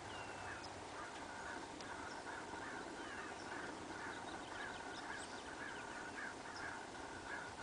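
Faint birds calling: a steady run of short, repeated notes, a few each second, with thin high chirps, over a soft even hiss.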